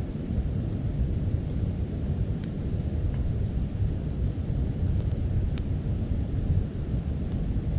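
Wood fire burning in a small titanium wood stove, giving a few sharp crackling pops, the clearest about two and a half and five and a half seconds in, over a steady low rumble.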